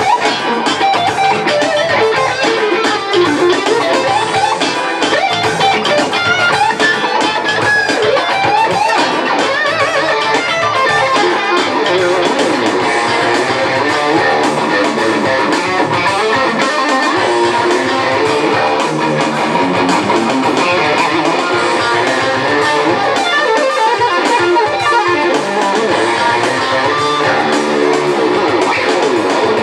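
Electric guitar played live through an amplifier in a funk style, a continuous stream of quick picked notes and lines.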